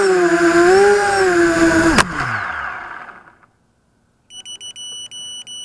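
Vortex FPV quadcopter's motors whining, the pitch dipping and rising, then a sharp knock about two seconds in as it hits the grass, and the motors winding down to quiet. Near the end a high electronic beeper sounds in quick repeated bursts.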